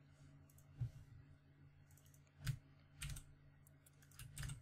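A handful of scattered computer keyboard and mouse clicks, faint, with a steady low electrical hum underneath.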